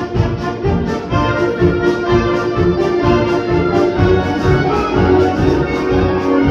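Concert band of clarinets, saxophones, brass and percussion playing a fast-paced piece, brass holding long notes over a quick, steady beat.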